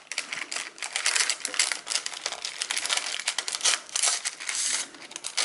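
Vellum paper crinkling and rustling as hands peel back its tape and unfold it from around a letter, a dense run of small crackles that grows louder for a moment about four seconds in.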